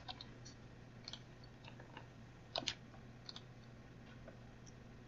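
Faint, scattered keystrokes on a computer keyboard, a few light clicks spread out with a louder pair about two and a half seconds in.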